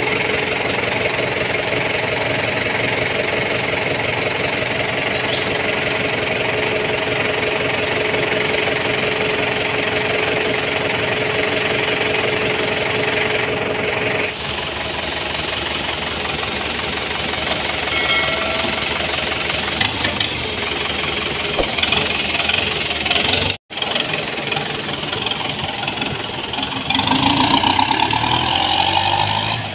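Kubota M9540 tractor's diesel engine running steadily at idle; near the end it gets louder as the tractor drives off.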